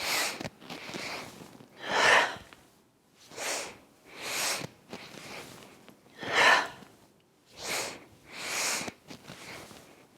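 A person doing a three-part yogic breath: three stepped inhales through the nose, then a strong release of the breath, repeated about three times. The breath-out is the loudest sound in each round.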